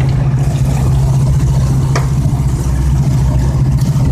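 Boat engine running at a steady low drone.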